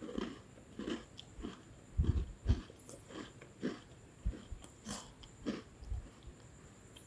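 Lemon sandwich biscuit being chewed close to the microphone: a run of crunches about two a second, growing fainter near the end.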